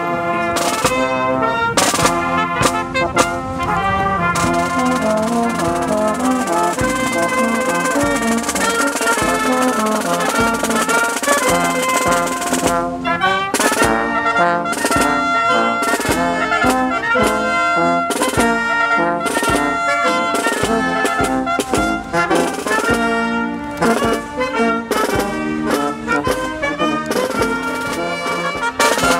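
Brass band playing, with trumpets and trombones to the fore: quick, separate notes, then a long held chord, then quick notes again from a little under halfway through.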